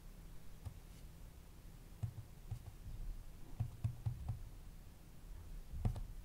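Faint, irregular clicks and soft taps of buttons being pressed on a handheld oscilloscope, about a dozen, several coming in quick succession near the middle, as the signal generator's frequency is changed.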